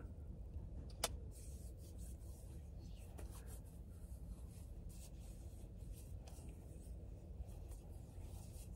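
Faint rubbing of hands, skin sliding on skin as a hand balm is worked in, with one sharp click about a second in, over a low steady hum.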